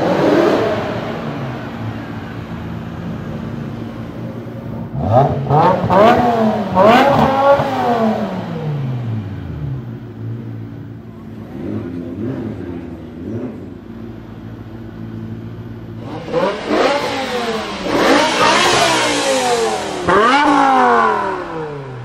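BMW M5 E60's naturally aspirated 5.0-litre S85 V10 idling, blipped into sharp free revs that rise and fall quickly. One cluster of revs comes about five seconds in and a longer one near the end.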